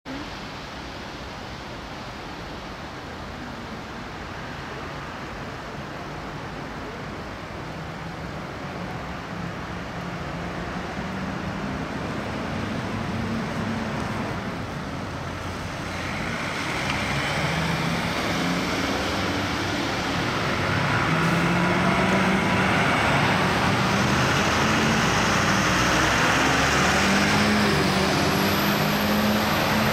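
Diesel engines of fire engines pulling out and driving past, their pitch rising and falling as they accelerate, growing steadily louder as the trucks come closer.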